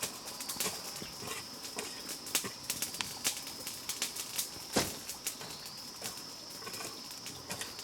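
Steady high-pitched insect drone, with scattered sharp clicks and knocks; one louder knock a little over halfway.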